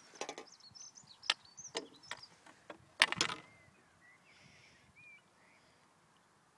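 Handling noises as a tench is lifted out of a landing net by hand: sharp knocks and rustles of the net, the loudest a short flurry about three seconds in. Birds chirp faintly behind it.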